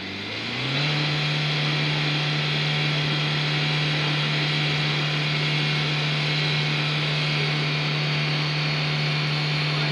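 Ambulance van's engine revving up and held at high revs for about nine seconds, its drive wheels spinning in the snow as it is stuck and being pushed, with a steady hiss over the engine note; the revs drop near the end.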